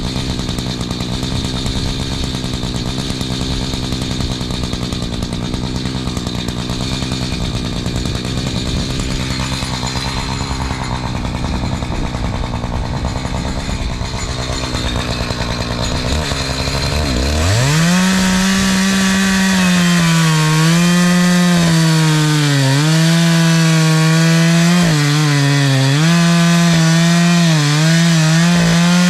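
Two-stroke chainsaw idling steadily, then revved to full throttle about seventeen seconds in and cutting through a log, its engine speed dipping and recovering as the freshly sharpened chain bites into the wood.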